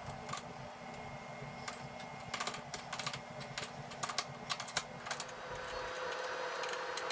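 Light, irregular clicks and taps, bunched in the middle, as the LED light whip's threaded quick-release base is handled and screwed into its mount.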